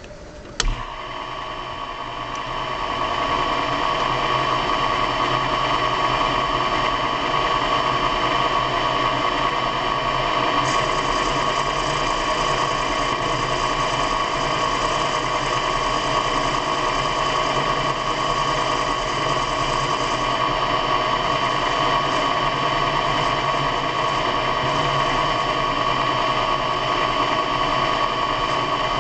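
An electric motor switching on with a click and spinning up over about three seconds to a steady humming whine with several steady tones. A faint hiss joins it for about ten seconds midway.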